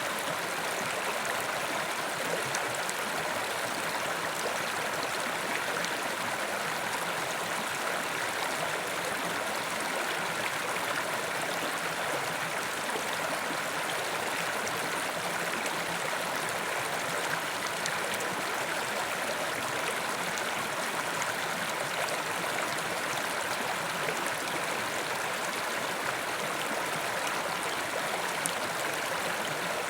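Mountain river rushing steadily over rocks, an even, unbroken water noise.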